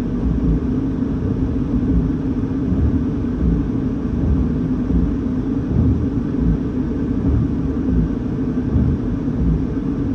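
Steady low rumble of a car idling, heard from inside its cabin, with irregular low gusts of wind.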